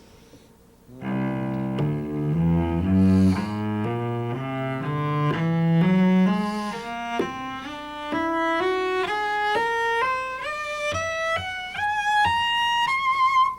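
A solo cello plays a whole-tone scale, rising note by note at about two notes a second from the low open C through about four octaves. It ends on a held high note with vibrato.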